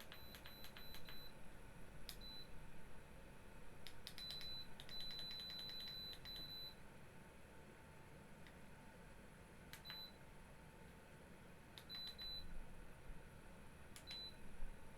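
Space heater's controls beeping as buttons are pressed: short high beeps, each with a click. They come in a quick run at the start, a longer run about four to seven seconds in, then single beeps every couple of seconds.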